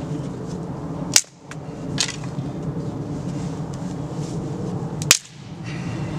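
Dead wooden sticks snapped by hand: two sharp cracks about four seconds apart, with a smaller crack between them, over a steady low background rumble.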